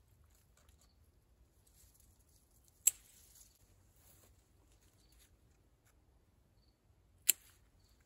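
Hand pruning shears snipping through bitter gourd stems: two sharp snips, about three seconds in and again near the end, with faint rustling of the vine's leaves between.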